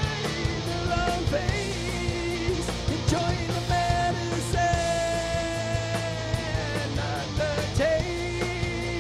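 Groove metal band playing live, with long held notes over heavy bass and drums.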